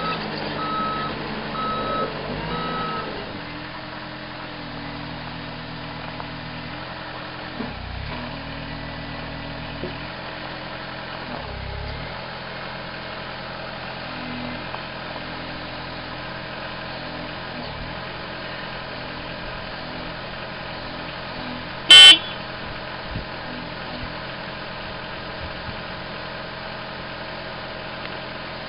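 Caterpillar 257B loader's diesel engine running steadily, its pitch stepping up and down with load, with a back-up alarm beeping during the first three seconds. A single loud, sharp knock about three-quarters of the way through.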